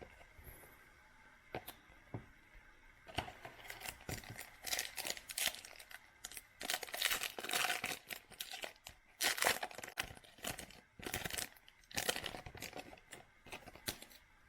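Foil trading-card pack wrapper and cards crinkling and rustling as they are handled, in a run of short scratchy bursts that begins about three seconds in.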